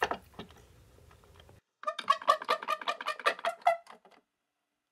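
Edited-in sound effect: a rapid run of pitched, buzzy pulses, about seven or eight a second, lasting a little over two seconds, coming in after a sudden drop to dead silence.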